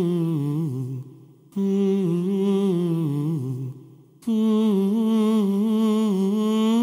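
Soundtrack music: a voice humming a slow, wavering melody in three long phrases, each fading away, with brief pauses about a second in and about four seconds in.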